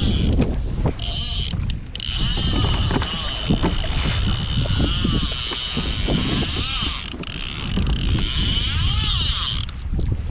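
Fishing reel being cranked, a steady mechanical whir that starts about two seconds in and stops near the end, under heavy wind buffeting on the microphone.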